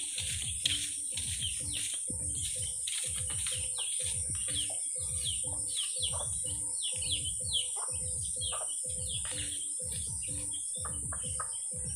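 Birds chirping with many quick, falling calls over a steady high-pitched insect drone, as from crickets or cicadas. A low pulse repeats underneath about every 0.7 seconds.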